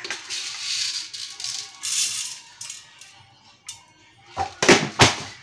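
A handful of dry rice grains poured into a cooking pot, a rattling hiss over the first few seconds, followed near the end by a few sharp knocks.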